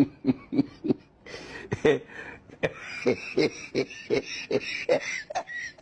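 Quick, irregular clicks and knocks of objects being handled, about two or three a second, sped up in a fast-forwarded stretch.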